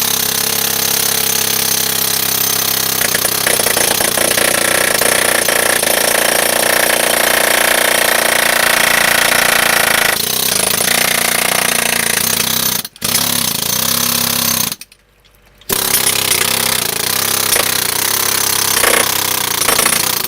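Jackhammer hammering against sheet pile in surface preparation, running continuously, with a brief drop about 13 seconds in and a one-second stop around 15 seconds before it starts again.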